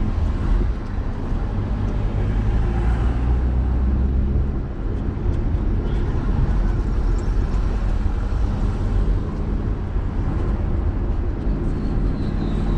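Car driving in light city traffic, heard from inside the cabin: a steady low engine and road rumble.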